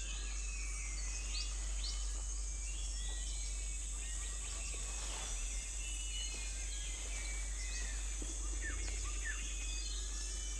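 Tropical forest ambience: a steady high insect drone with many short bird chirps and quick whistles scattered through it.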